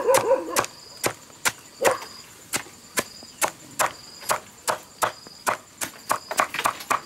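Large kitchen knife chopping soft vegetable stalks against a tarp on the ground: steady chops about two to three a second, quickening near the end.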